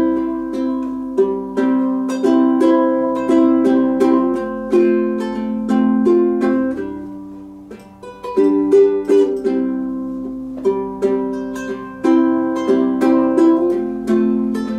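Instrumental break of a folk song: an acoustic plucked string instrument strumming and picking chords in a steady rhythm, with no singing. It eases off and briefly fades about halfway through, then comes back in.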